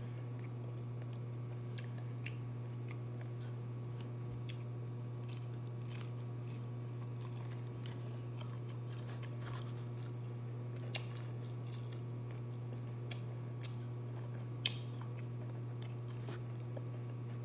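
Close-up chewing and biting into a crispy breaded fried chicken wing, with scattered sharp crunches, the loudest about three quarters of the way through. A steady low hum runs underneath.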